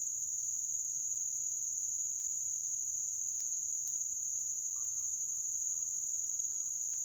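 Steady, high-pitched chorus of insects singing without a break, with a few faint ticks.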